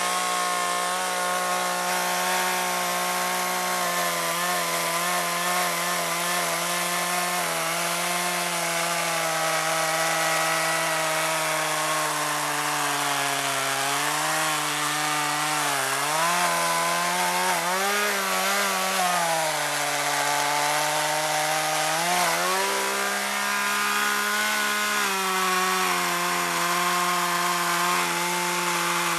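Two-stroke chainsaw running at high speed while cutting wood, its pitch dipping and recovering several times in the middle as the chain loads in the cut. It runs on old two-stroke fuel mix blended with fresh alcohol-free gas.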